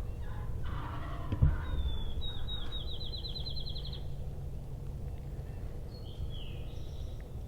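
Wild songbirds calling: a rapid trill of high notes lasting about two seconds, then a short falling whistle near the end, over a steady low rumble. A soft thump comes about a second and a half in.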